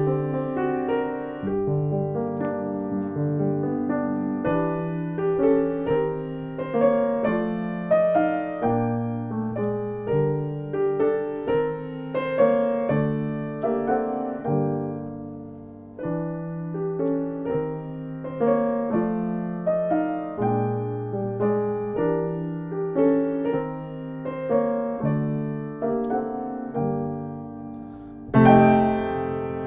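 Solo piano playing a slow, gentle piece, with held chords over low bass notes; a louder chord is struck near the end.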